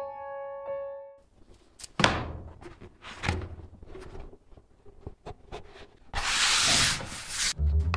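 A few soft piano notes fade out in the first second. Then a leather hide is handled on a cutting mat by hand: scattered knocks and low thumps, a second-long rubbing hiss about six seconds in as hands slide over the leather, and a low thump near the end.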